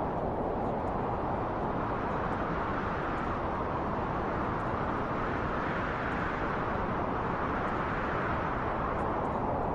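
Wind blowing steadily, a low rushing noise that swells a little around the middle.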